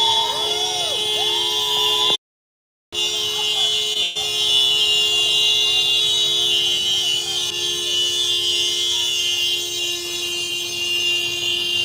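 Honda car horn held down in one continuous, steady blare, with a sudden cut to total silence for under a second just after two seconds in.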